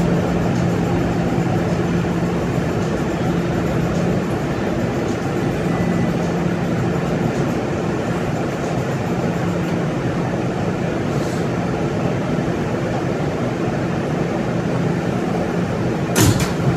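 R211S subway car running between stations, heard from inside: a steady rumble of wheels on rail with a low hum that comes and goes. One sharp knock near the end.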